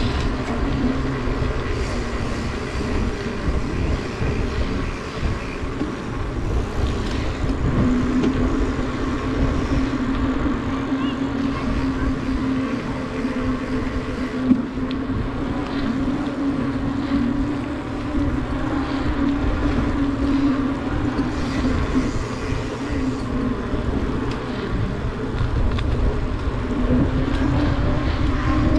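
Bicycles rolling along a paved trail: wind rumbling on the moving camera's microphone and a steady hum from knobby mountain-bike tyres on the asphalt, drifting a little in pitch with speed. One sharp knock about halfway through.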